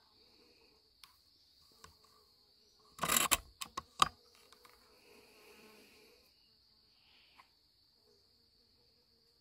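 Steady high-pitched chorus of night insects such as crickets. About three seconds in comes a brief burst of loud clicks and rustling, ending in one sharp click, the loudest sound.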